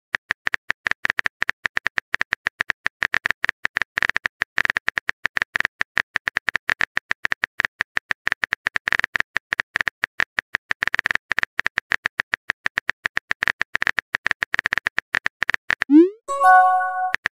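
Texting-app keyboard clicks, a fast irregular run of short taps as a message is typed out. Near the end a short rising swoosh and a brief chime mark the message being sent.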